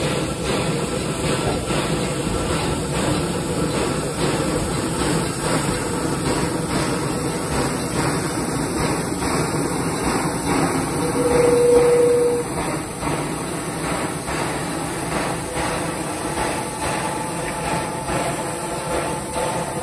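Pere Marquette 1225's excursion train running past, a steady rumble with regular clicking from the wheels. A short single tone sounds just past halfway, the loudest moment.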